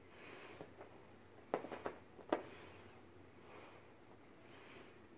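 A cat batting at and biting a feather wand toy: a few quick soft taps and rustles about a second and a half to two and a half seconds in, over a faint quiet room.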